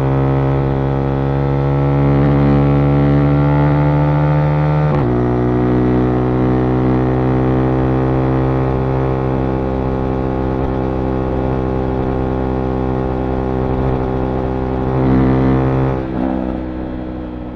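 Husqvarna Vitpilen 401's single-cylinder engine running at steady revs under way. The pitch shifts briefly about five seconds in, then holds steady, and the sound eases off near the end.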